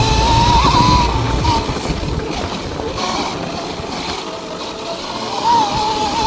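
Sur-Ron electric dirt bike ridden along a dirt trail: the electric motor's whine wavers up and down with the throttle, fading in the middle and coming back near the end, over a low rumble of wind and tyres that eases off about two-thirds of the way through.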